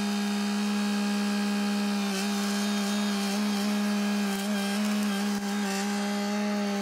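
Kioti compact tractor's engine running at a steady speed, a steady hum that dips briefly about two seconds in and again after five seconds as the grapple loader works the brush pile.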